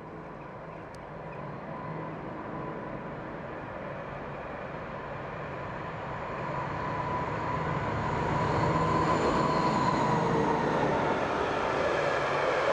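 A yellow railway works train approaching and passing close by, growing steadily louder and staying loud from about eight seconds in, with a steady whine running through the rumble.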